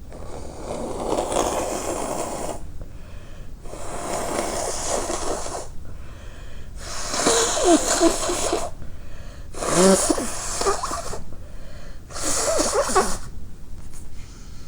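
A person blowing their nose hard five times, each blow a rush of air lasting one to two seconds; the last three carry wavering, squeaky notes. The nose is running from stifled sneezes.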